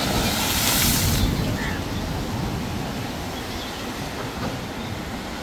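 Rough storm waves breaking against a concrete shore edge. One wave smashes into it, throwing up spray with a loud hissing splash that lasts about a second, then the surf washes on steadily over a low rumble.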